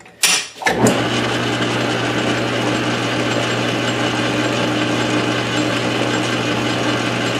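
A few clicks, then less than a second in a South Bend 13-inch metal lathe starts up and runs steadily with an even, constant hum from its motor and drive as the four-jaw chuck spins.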